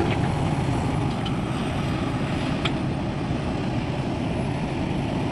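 Heavy diesel engine of construction machinery running steadily, with one short sharp click about two and a half seconds in.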